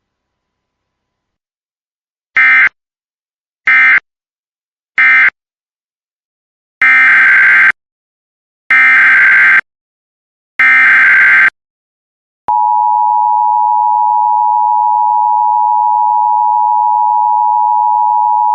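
Emergency Alert System digital data bursts: three short end-of-message bursts, then, after a pause, three longer SAME header bursts that announce the next alert. About 12 seconds in, the loud steady two-tone EAS attention signal begins.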